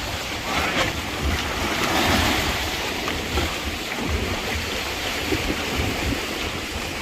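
Sea surf washing on the shore, swelling about two seconds in, with wind buffeting the microphone in low rumbles.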